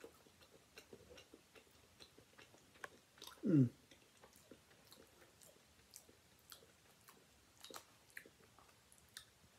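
Quiet chewing of a mouthful of chicken and brown rice: soft, irregular wet clicks and ticks from the mouth. A short falling tone about three and a half seconds in is the loudest moment.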